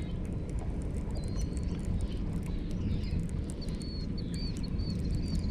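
A bird calling in a quick series of short, high, arched chirps, over a steady low rumble.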